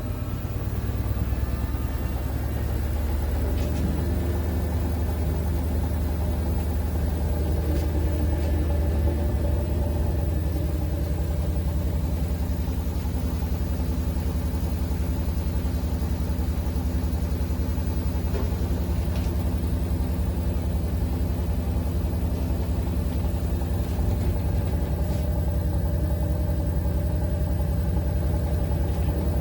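Steady low mechanical hum of a running machine, with a droning, engine-like tone that holds level throughout.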